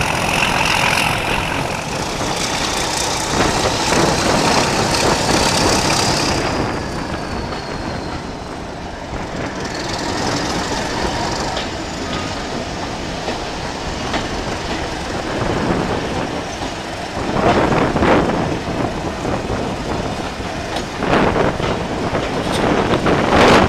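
Rail running noise of a moving train heard from an open carriage window: a steady rumble of wheels on track, with a faint wheel squeal in the first few seconds and louder surges of wheel-and-rail clatter near the end.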